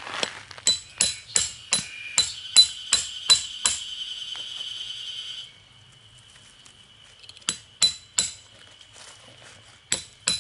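Hammer driving metal tent pegs into the ground, each blow with a bright metallic ring: a quick run of about nine strikes, then a pause while the ring dies away, three more strikes, and another quick run near the end.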